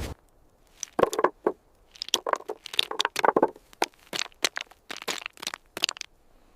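A series of irregular, sharp crunching cracks, starting about a second in and stopping shortly before the end.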